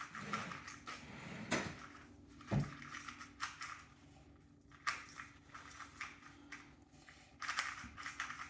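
GAN 249 V2 2x2 speed cube without magnets being turned by hand: bursts of light plastic clicking and clacking with short pauses between, and a single soft thump about two and a half seconds in.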